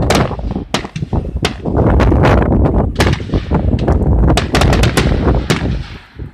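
Aerial firework shells bursting: a rapid series of sharp bangs and crackles, several close together.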